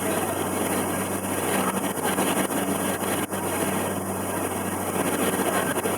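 River cruise boat's engine running steadily under way: a constant low hum under an even rush of water and air noise.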